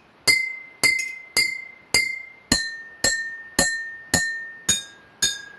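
A metal spoon taps water-filled glass bottles about twice a second, and each tap rings a clear glassy note. The pitch steps down twice, about four taps on each bottle, as the spoon moves to bottles holding more water. The water level tunes each bottle's note.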